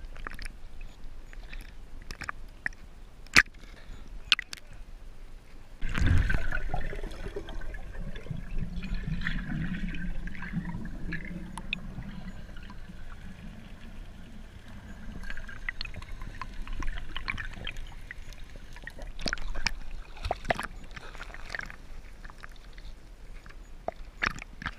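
Small waves lapping and sloshing around a waterproof action camera at the sea's surface, with sharp clicks and taps on its housing. About six seconds in, a sudden loud splash gives way to several seconds of muffled gurgling and bubbling.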